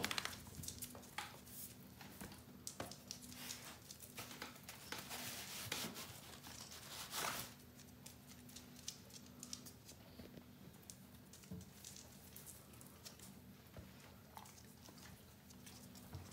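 Paper bag crinkling and rustling faintly as a cat shifts inside it. The rustling is busiest in the first half, with a louder rustle about seven seconds in, then settles to occasional small crackles.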